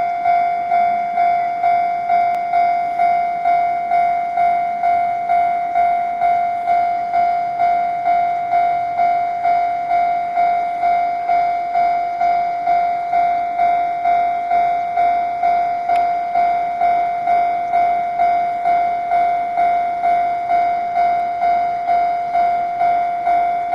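Japanese railway level-crossing alarm ringing, warning of an approaching train: a single high tone that pulses evenly about one and a half times a second.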